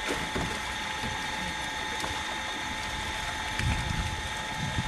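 Motor-driven water pump running steadily: a constant mechanical drone with a steady whine, while it discharges a jet of water into the pond. A few low thuds about three-quarters of the way in.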